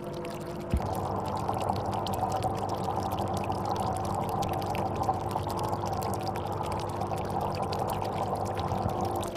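Aquarium water bubbling and splashing, over a steady motor hum from the tank's pump. A single knock comes about a second in, and the water sound grows louder after it.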